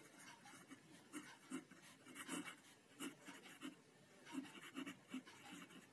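Pen writing on a lined notebook page: faint, short scratching strokes as words are written out by hand.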